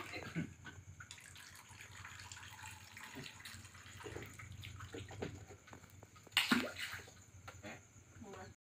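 Faint trickling and dripping of water at a fish pond, with a brief louder sound about six and a half seconds in.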